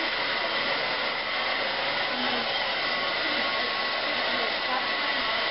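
Handheld hair dryer running steadily on hair, a constant rush of air with a faint high motor whine over it.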